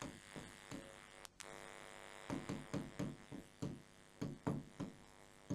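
Marker pen writing on a whiteboard: a quick run of short, separate scratchy strokes.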